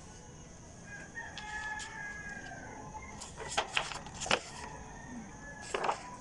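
Paper instruction sheets being handled and flipped, with several crisp crackles of paper about three to four seconds in and again near the end. Before that, a long drawn-out animal call sounds in the background.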